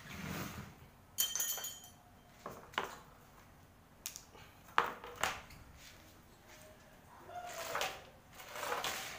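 Metal cage droppings tray handled on a tiled floor: a brief metallic rattle with ringing about a second in, a few sharp knocks of the tray against the tiles, and two longer scraping, brushing sounds near the end.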